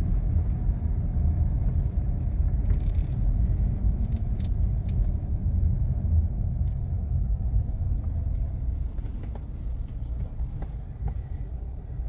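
Car driving in town heard from inside the cabin: a steady low rumble of engine and road noise, with a few faint clicks.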